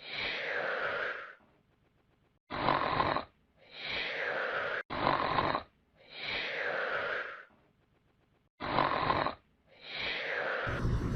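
Snoring sound effect repeating about every three seconds: a short rasping snore in, then a longer breath out that falls in pitch. A different, louder sound cuts in near the end.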